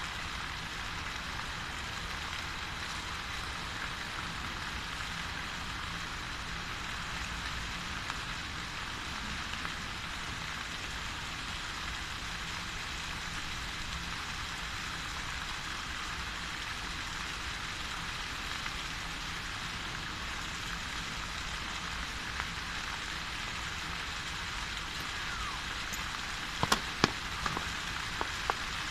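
Fountain water jets falling into a stone basin: a steady hiss and patter of splashing water. Near the end, a few sharp knocks close by.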